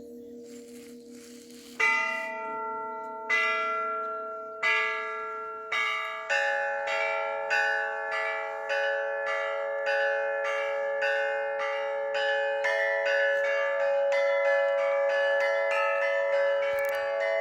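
Russian Orthodox church bells rung to call the faithful to a service. At first a low bell hums as it fades. About two seconds in the strokes begin, slowly at first and then quickening to about two a second, with more bells joining so the ringing thickens.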